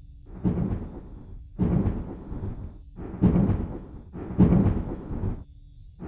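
A series of five deep, rumbling booms, one about every second and a half, each dying away within a second. A faint steady hum sits between them.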